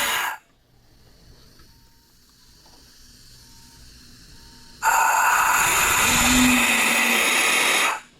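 3D-printed six-chime Santa Fe steam whistle blown on compressed air: a blast cuts off just after the start, and a second blast of about three seconds starts about five seconds in and stops sharply. It sounds as a chord of several tones over a lot of rushing air.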